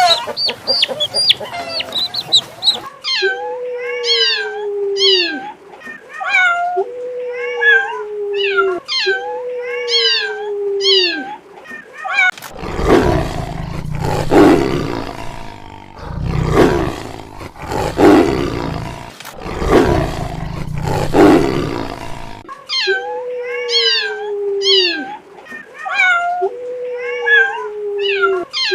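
Hen clucking briefly, then a cat meowing over and over, each meow a drawn-out call falling in pitch. In the middle there is a stretch of low, rough roaring, like a big cat. The meows then resume.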